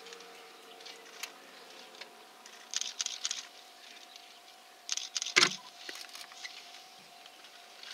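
Two short bursts of light rattling and clicking close to the microphone, about three and five seconds in, the second one louder, over a faint steady tone.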